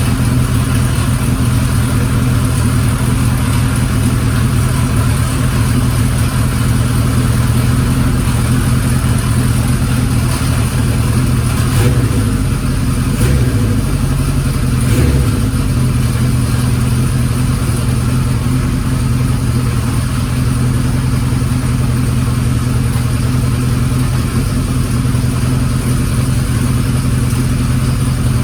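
Kawasaki Z1's air-cooled inline-four idling steadily, with a few short blips of the throttle about halfway through, and a loud abnormal mechanical noise from the engine.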